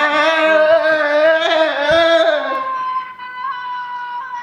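A long held, sung or wailed note with a wavering pitch, coming through the phone's speaker from the video-chat app; it fades out about two and a half seconds in, leaving a thin steady high tone.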